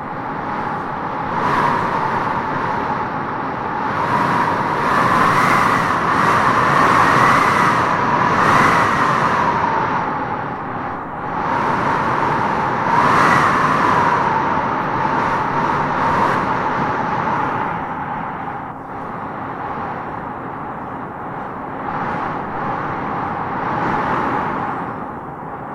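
Howling wind gusting through trees: a steady rushing hiss with a whistling howl that swells and fades several times, strongest a few seconds in and again about halfway through.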